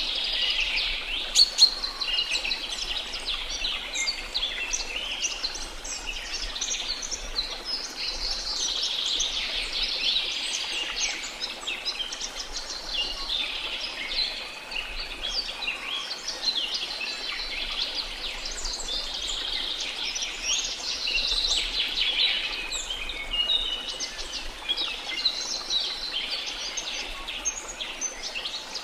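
Many birds chirping and singing at once, dense and continuous, over a faint steady rush of falling water. One sharp click-like note stands out about a second and a half in.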